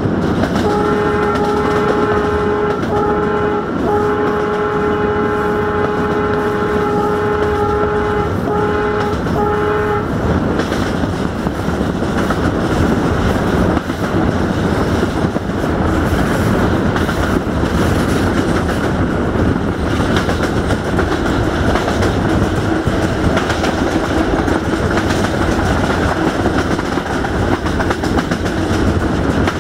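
LDE2100 (060-DA) diesel-electric locomotive running hard, its Sulzer 12LDA28 twelve-cylinder engine loud under the noise of the moving train, heard at the cab's open side window. For the first ten seconds the locomotive's horn sounds one long, steady note broken by a few short gaps.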